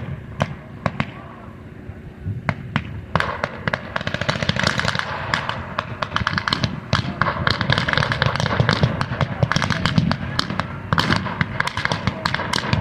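Blank-firing small-arms fire in a mock battle. Scattered single shots at first, then heavy, rapid overlapping firing from about three seconds in.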